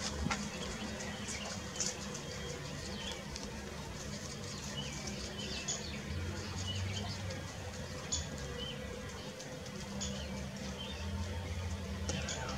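Grey squirrel gnawing on a bone, its teeth making a scattered run of small dry clicks and scrapes. Birds chirp now and then, over a steady low hum.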